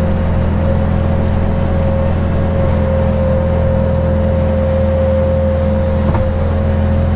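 Skid-steer loader's engine running steadily, heard from inside its cab as it drives, with a constant high whine over the low engine hum.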